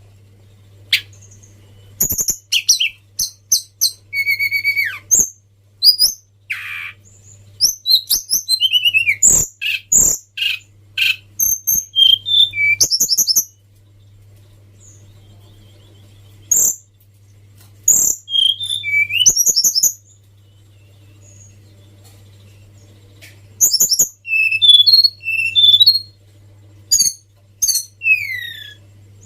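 Tledekan songbird singing: phrases of quick high chirps, trills and sliding whistles, with a few pauses of a couple of seconds between them. A steady low hum runs underneath.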